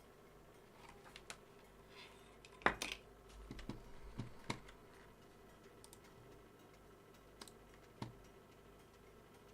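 Small hard objects being handled: irregular clicks and light knocks, the loudest about two and a half seconds in, with a few more near the middle and one near the end.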